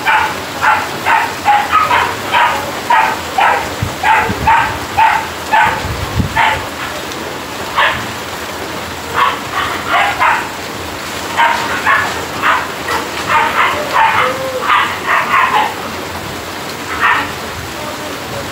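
Steady rain falling, with a dog barking over it in quick runs of short barks, about two or three a second, pausing for a few seconds partway through.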